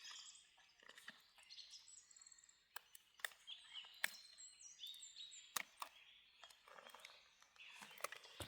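Faint songbirds singing, with a few sharp clicks scattered through it from a small boxed pocket knife being handled and unpacked.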